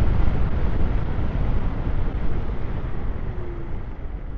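Wind rushing and buffeting over a DJI Mic 2 transmitter worn by a rider on an electric scooter at high speed: a loud, steady, low rushing noise that eases a little toward the end.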